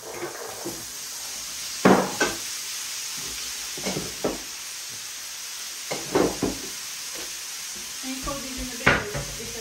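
Chickpeas going into a hot frying pan of tomatoes and onions on a gas hob: a steady sizzle of frying, broken every couple of seconds by sharp knocks and scrapes of the steel colander and wooden spoon against the pan, often in quick pairs, the loudest about two seconds in.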